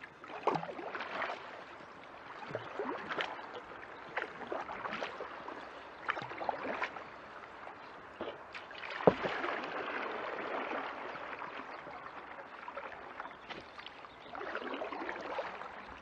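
Kayak paddling: water splashing and dripping off the paddle with each stroke, with scattered sharp knocks, the loudest about nine seconds in.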